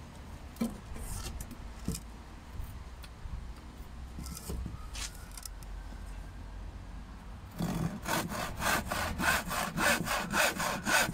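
Hand saw cutting through a length of timber in quick, even strokes, about three a second, starting about two-thirds of the way in. Before that there are only a few light knocks as the wood is handled.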